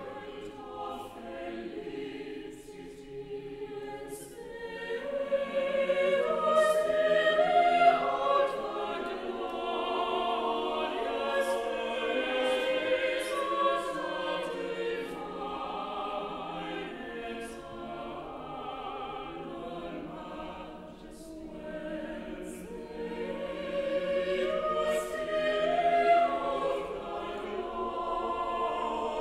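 A choir singing a slow piece, swelling louder twice.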